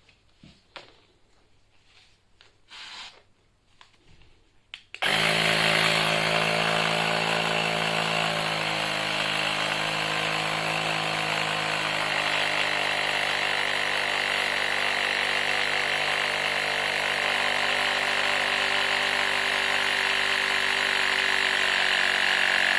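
A small electric tyre inflator (air compressor) runs steadily, pumping up a scooter's inner tube. It starts suddenly about five seconds in with a few faint handling knocks before it, its pitch sags slightly as pressure builds, and it stops at the end once the tyre is up to pressure.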